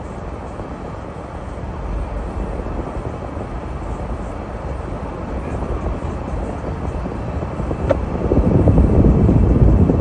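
Steady low rumble and hiss of a vehicle driving through a snowstorm, swelling louder about eight seconds in.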